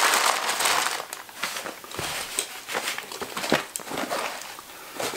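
Rustling of fabric and packaging with scattered light knocks and clicks as gear is handled and packed into a backpack; the rustling is loudest for about the first second.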